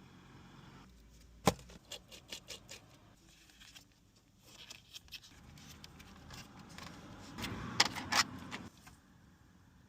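Sharp clicks and taps of small hard objects being handled. One loud click comes about a second and a half in, followed by a quick run of lighter ones. Near the end there is a scraping rustle with two more sharp clicks.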